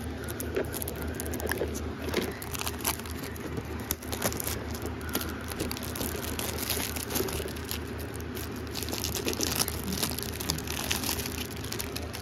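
Crinkling and crackling handling noise as a DVD box set and the fabric around it are handled close to the phone's microphone, with many small irregular clicks over a low steady hum.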